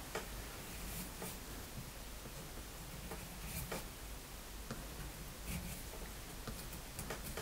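Okada Japanese skiving knife paring the edge of thick oak bark-tanned leather thinner: faint scraping with scattered light ticks.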